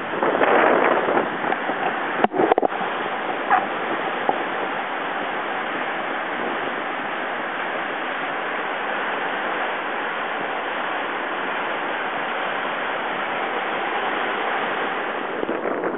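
Steady rushing of a river in flood, with a few brief knocks in the first few seconds.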